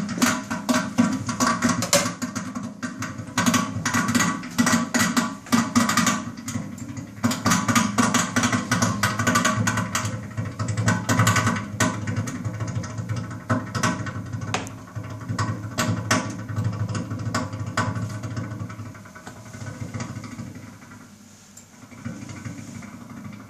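Expobar Brewtus espresso machine making a loud noise: a dense, irregular crackling and rattling over a low hum, easing off over the last few seconds. The owner first took it for water boiling inside the machine but is no longer convinced.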